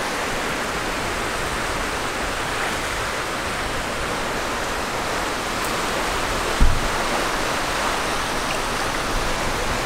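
Surf washing onto a sandy beach: a steady rushing noise, with one brief low bump about two-thirds of the way through.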